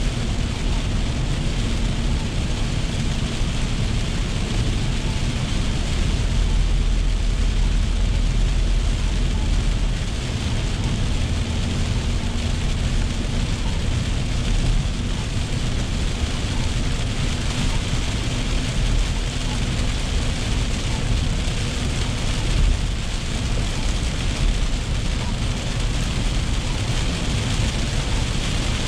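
Inside a car's cabin at highway speed in heavy rain: steady tyre and road rumble on the wet pavement, mixed with rain hitting the roof and windshield.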